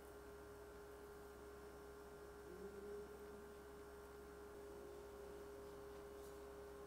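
Near silence with a faint steady hum and a held tone, a second tone joining about halfway through.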